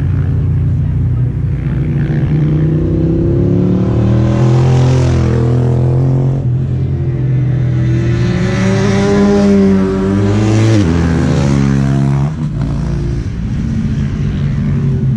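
Sport motorcycles' engines at high revs as the bikes come along the track and pass. The engine note climbs, then drops sharply about eleven seconds in.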